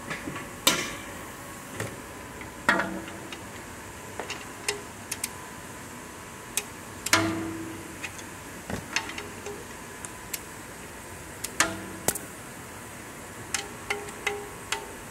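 Metal hand tools (a ratchet and socket) clanking and clicking while the sump drain plug is refitted. There are a handful of sharp ringing clanks a few seconds apart, scattered small clicks, and a quick run of lighter clicks near the end.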